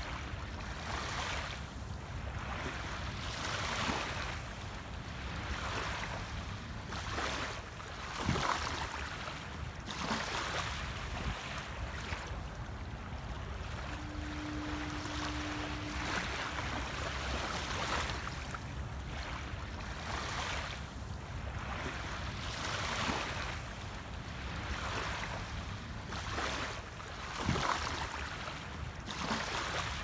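Small waves lapping and washing onto a sandy shore every second or two, over a steady low rumble. A brief steady low tone sounds about halfway through.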